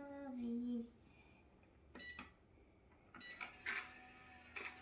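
A child's voice trailing off in the first second, then a few short clicks in the quiet, some with a brief high ring.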